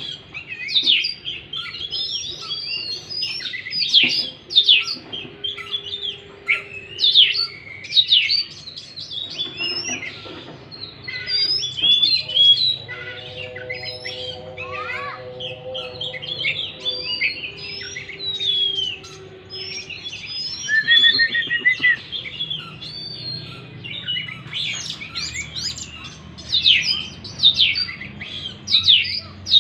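Oriental magpie-robin (kacer) singing continuously: a rapid, varied string of whistles, chirps and trills. A low steady hum sounds under it for several seconds midway.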